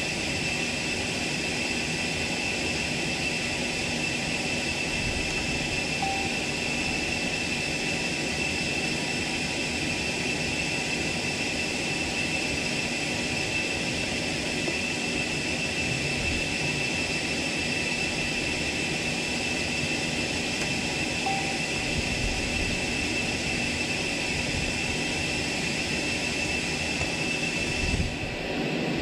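Bell 429 helicopter's twin turboshaft engines running with a steady high whine over constant rotor and airflow noise.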